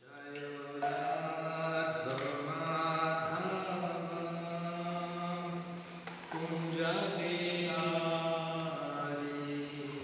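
A man's voice chanting a mantra in long, steady sung notes, with a short pause about six seconds in.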